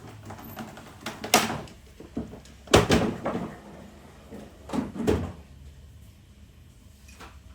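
Three loud knocks, each with a short rattling clatter after it, about a second and a half, three seconds and five seconds in, with a few lighter clicks between them: objects or fittings being handled and put away during tidying up.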